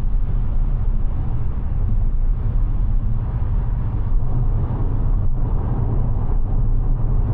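Steady road and tyre noise from a Mazda 6e electric sedan driving at an even pace, a constant low rumble with no engine note.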